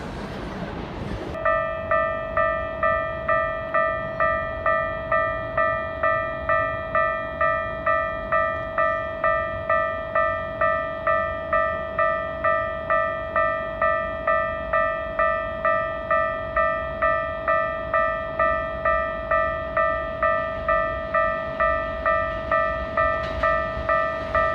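Japanese level-crossing warning bell ringing about twice a second, each electronic stroke fading quickly, starting about a second and a half in: the crossing signal for an approaching train.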